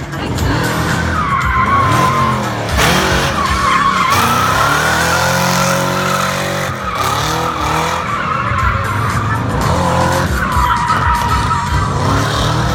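Supercharged 4.4-litre engine in a Volga car revving hard, its pitch dropping and climbing repeatedly, with tyres squealing.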